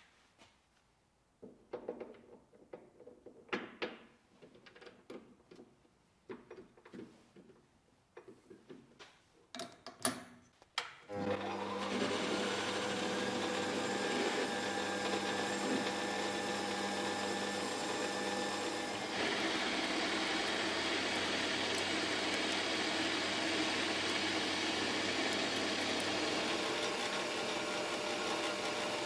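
Scattered clicks and knocks of parts and tools being handled, then about eleven seconds in an electric workshop machine starts, its motor whine rising as it spins up, and runs steadily; its sound shifts a little about eight seconds later.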